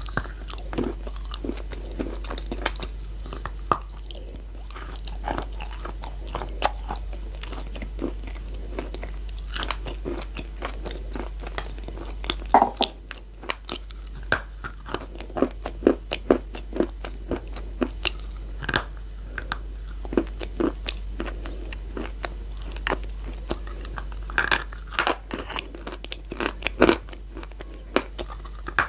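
Close-miked biting and chewing of chunks of chalk and clay-chalk: dense crisp crunching with sharp cracks, the loudest bites coming a little before the middle and again near the end.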